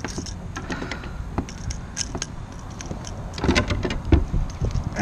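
Fishing pliers and a Jitterbug lure's metal hooks clicking and clinking as a hook is worked out of a largemouth bass's mouth, with a cluster of louder clicks and knocks about three and a half to four and a half seconds in, over a steady low rumble.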